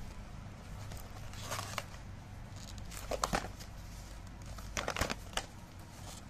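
Cardboard product box being handled and its end flap opened: rustling and scraping of card in three short clusters, about one and a half, three and five seconds in.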